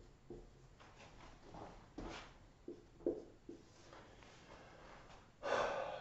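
Marker writing on a whiteboard: a string of short squeaks and taps as figures are written. A louder burst of noise comes near the end.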